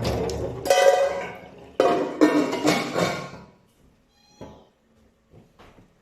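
A cat meowing twice, two long drawn-out calls, as running tap water fades out at the start.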